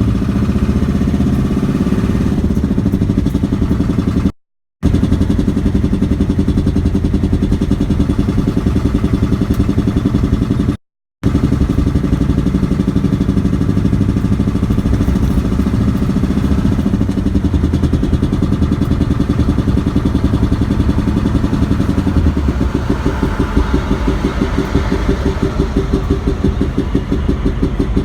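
IDI diesel engine idling steadily, making a noise the owner considers a bad sound. In the last few seconds an even, rapid pulsing becomes more pronounced.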